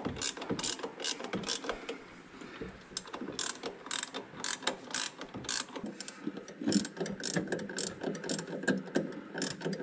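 Hand socket ratchet clicking in short, irregular runs as it is worked back and forth on a fastener.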